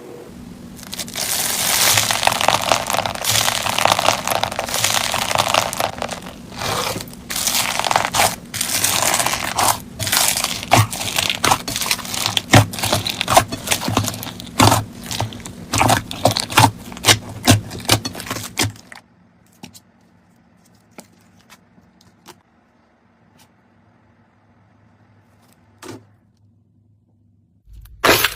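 Slime being pressed and worked by hand, making a dense crackling, scraping noise full of sharp clicks and pops. After about two-thirds of the way through it mostly stops, leaving only a few scattered clicks.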